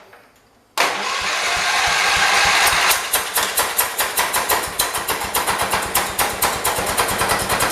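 1978 John Deere 208 lawn tractor's single-cylinder engine dies away, then starts cranking again suddenly under a second in. About three seconds in it catches and runs with uneven, rough firing pulses, still running poorly after the head gasket job.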